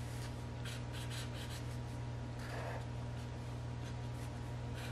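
Brown felt-tip marker rubbing across paper in short colouring strokes, with a quick run of strokes about a second in, over a steady low hum.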